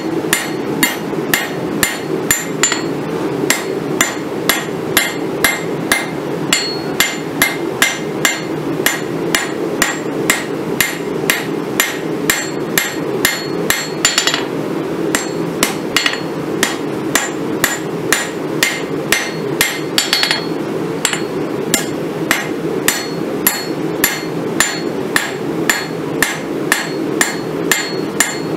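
A hammer strikes a red-hot steel railroad spike on an anvil about twice a second, each blow ringing, as the spike is drawn out flat. A wire brush scrubs the scale off about 14 s in, and again about 20 s in. A steady low rumble runs underneath.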